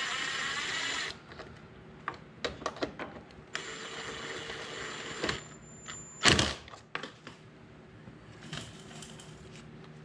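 Ryobi cordless ratchet running in two short bursts, about a second each with a pause between, driving the carburetor mounting nuts down onto a plastic part without wrenching them tight. A loud knock follows in the second half, then a few light clicks.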